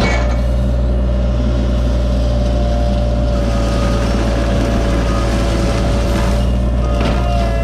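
Cat 303.5 mini excavator's diesel engine running steadily.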